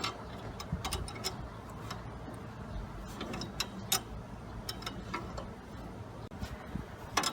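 Wrench working on nuts and bolts of the lawn tractor's steering: scattered metal clicks and clinks at irregular intervals, with a louder clink near the end.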